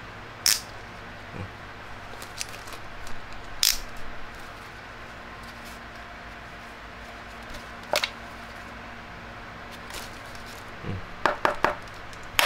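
A bicycle helmet being handled: scattered single sharp clicks and knocks, then a quick run of several clicks near the end.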